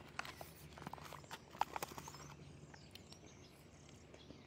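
Foil MRE ration pouch crinkling and a plastic spoon clicking against it as the pouch is handled, busiest in the first two seconds and sparser after, over a steady low hum.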